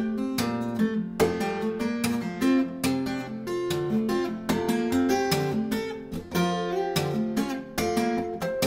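Solo acoustic guitar, a handcrafted instrument by Herman Hammarén, played fingerstyle in a quick run of plucked notes that ring over one another. The picking hand also taps notes up on the fretboard.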